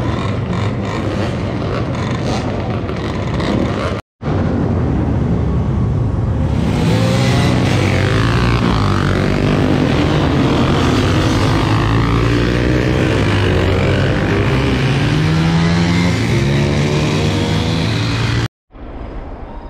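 Several vintage dirt bikes' engines revving and pulling away together, overlapping engine notes rising and falling. The sound cuts out abruptly twice, briefly, about 4 s in and near the end.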